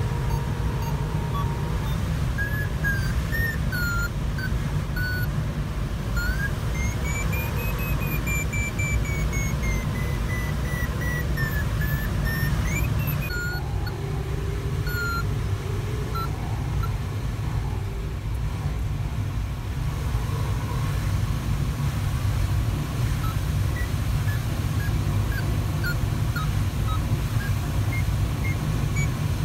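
Steady low rush of airflow noise in the cockpit of a Sparrowhawk ultralight glider in flight, overlaid by an electronic variometer beeping. It gives short beeps, then a longer tone that rises and falls back in pitch, goes quiet for a few seconds past the middle, and resumes its short beeps in the second half.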